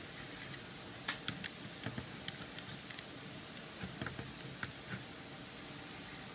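A run of small, light plastic clicks and taps as a Samsung Galaxy S2 phone is handled and its plastic back cover is pressed and clipped into place. The two sharpest clicks come about four and a half seconds in.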